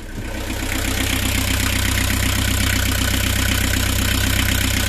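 Nanni marine diesel engine running steadily with an even rhythmic clatter, running well as a healthy diesel should. It grows louder over the first second as the engine-room floor hatch is lifted open.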